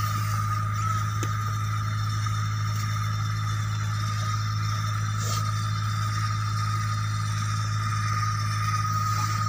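Automatic geomembrane welding machine running as it travels along a seam, heat-welding the overlap of two 1 mm geomembrane sheets: a steady low motor hum with a thin, constant high whine.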